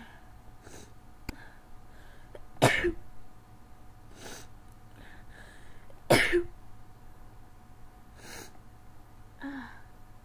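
A person sneezing twice, two loud sudden sneezes about three and a half seconds apart, part of an allergy sneezing fit. Softer breathy sounds come between them.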